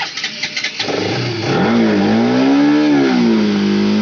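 Bajaj Pulsar RS200's single-cylinder engine cold-started on the electric starter after hours soaked in rain: brief cranking, then it catches about a second in, revs up once and settles into a steady idle.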